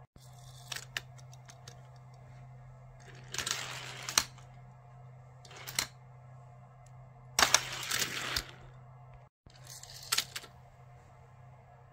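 Die-cast toy cars rolling fast down a plastic drag-race track in a few short rushes, each ending in a sharp clack. Clicks of the plastic launcher and of cars being set in place come between the rushes.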